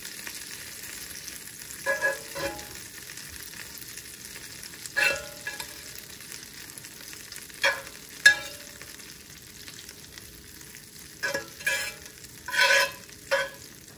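Butter melting and sizzling in a very hot, oven-preheated skillet, a steady hiss. A fork scrapes and clinks against the pan about nine times as the butter is pushed around to coat the sides.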